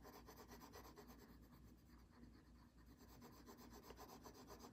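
Faint scratching of a coloured pencil on paper, quick repeated strokes as an area is shaded in.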